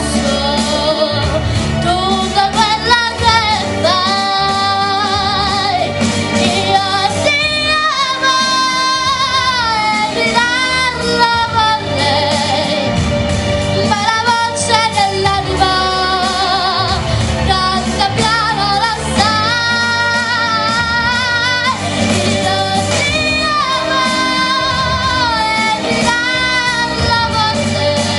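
A girl singing an Italian love ballad into a microphone over instrumental accompaniment, holding long notes with vibrato.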